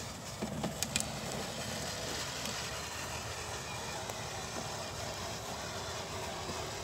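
Battery-powered kids' ride-on toy motorcycle driving over grass: a steady electric-motor and gearbox drone with its plastic wheels rolling, and a few sharp clicks about a second in.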